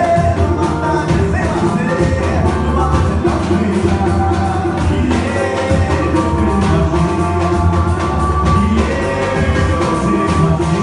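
Live pagode band playing: a singer's voice over keyboard, strummed strings and percussion with a steady beat.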